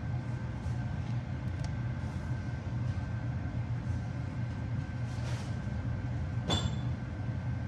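Baking tray handled at the oven: a few light clicks, then a sharp metallic clank with a brief ring about six and a half seconds in, over a steady low rumble.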